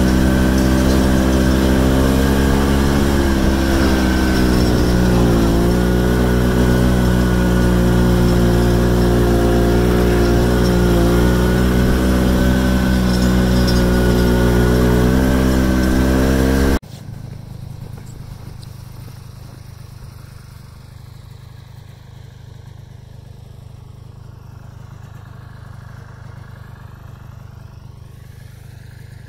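Snowmobile engine running steadily under load, its pitch dipping and recovering a few times. About 17 seconds in the sound drops off abruptly to a much quieter low rumble.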